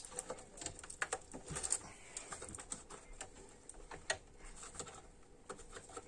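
Faint, irregular clicks and light rattles of hands handling cables and plastic connectors inside an open desktop computer tower case.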